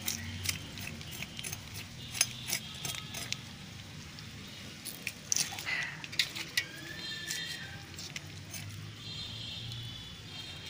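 Whole fish being handled and slid over a jute sack beside a boti blade: scattered sharp clicks and light clinks throughout, over a faint steady hum.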